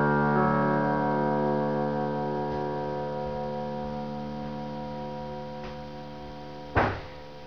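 Closing chord of a slow piano piece held on the keys, ringing and slowly fading away. A short knock sounds near the end.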